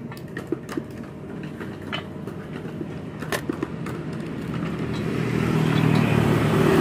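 Low engine rumble of a passing motor vehicle, growing louder through the second half. A few light metallic clicks in the first half come from the cut-off saw's vise handwheel and screw being turned by hand.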